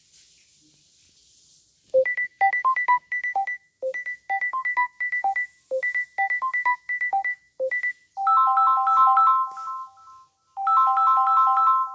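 Samsung Galaxy S10 ringtones playing. The first is a melody of short, bright, beeping notes, one phrase repeated about four times. From about eight seconds comes a different tune of quick chiming chords, played twice.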